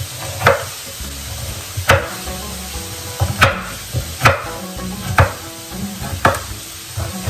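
Kitchen knife chopping a long sweet pepper on a wooden cutting board: sharp knocks of the blade on the board, about one a second.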